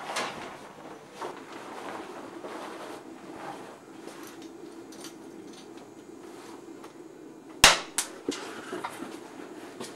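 Changing-room locker door banging once, sharply, about three-quarters of the way through, with a second knock just after and a few lighter clicks. Before it, soft rustling of clothes as someone undresses over a steady low hum.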